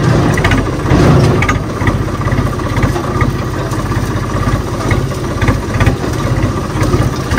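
Tractor's diesel engine running steadily with a low, rapid pulse, heard close up from the driver's seat as the tractor drives across a field.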